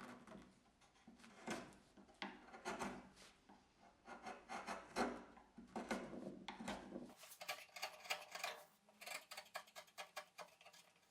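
Faint scraping of a freshly sharpened chisel paring across wood end grain, in a run of short, irregular strokes. About seven seconds in, the strokes become quicker and closer together.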